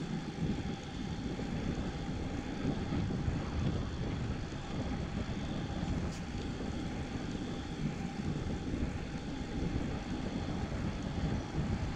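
Steady rush of wind on the microphone with rumbling road noise from a road bike riding along.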